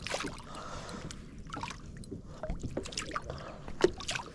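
Small water splashes and lapping against a kayak hull, with scattered light knocks and one sharper knock a little under four seconds in.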